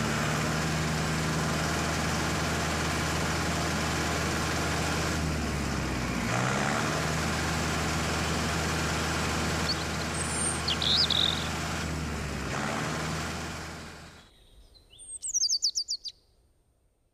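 Diesel tractor engine idling steadily, with two brief rises in revs, fading out about 14 seconds in. A bird chirps a few times partway through, then gives a quick run of chirps near the end.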